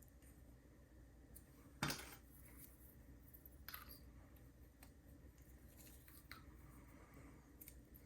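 Near silence broken by a few faint, short metal clicks, the clearest about two seconds in. They come from working a shim and the plug in a Schlage deadbolt lock cylinder.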